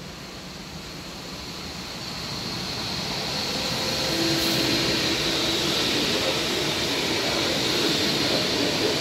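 Alstom Coradia Continental (DB class 1440) electric multiple unit passing through a station without stopping. The rush of its wheels on the rails grows over the first four seconds as it approaches, then stays steady as the train runs by.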